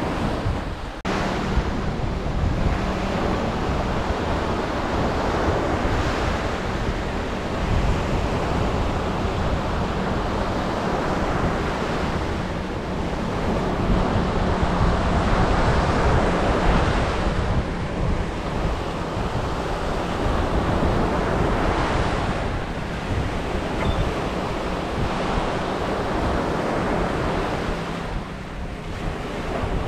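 Sea waves breaking and washing up a beach, the surf swelling and easing every few seconds, with wind buffeting the microphone.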